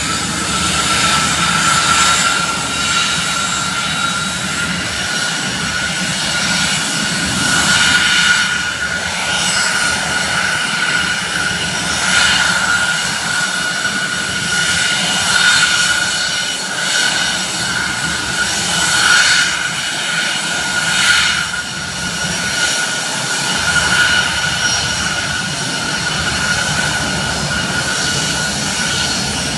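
Airbus A320's twin jet engines at taxi power: a steady high whine over a rushing hiss, swelling briefly every few seconds.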